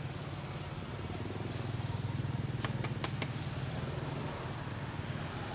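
A steady low engine hum, like a motor running nearby, with a few sharp clicks about halfway through.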